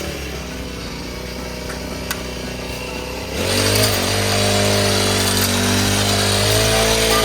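Small engine running steadily with a hum that holds one pitch. It drops to a lower level, then comes back up louder about three and a half seconds in.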